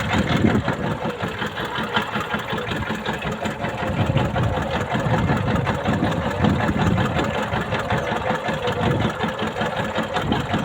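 A boat's engine running steadily with a fast, even chugging.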